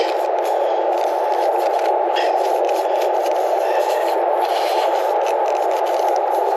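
Tyre plug kit's spiral reamer tool being worked up and down in a tyre puncture, rasping the rubber to clean out the hole before a plug goes in. A steady rushing background noise runs underneath the whole time.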